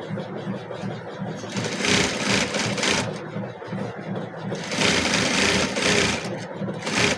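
A small motorised machine running with a rapid, even chatter, growing louder and hissier for a stretch about two seconds in and again about five seconds in.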